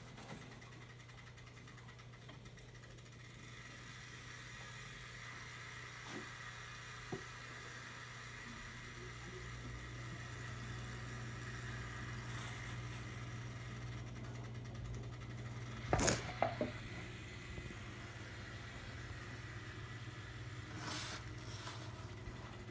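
Steady low electrical hum, with a few scattered light knocks and a louder clatter of several knocks about 16 seconds in, from the glass cage being handled.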